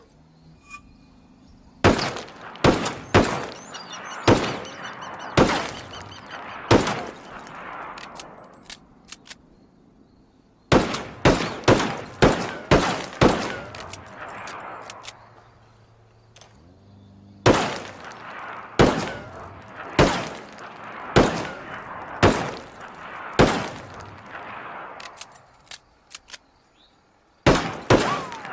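Single-action revolver (Colt Peacemaker) firing in volleys of about six shots, roughly one a second, each shot with an echoing tail; three full volleys with pauses between, and a fourth starting near the end.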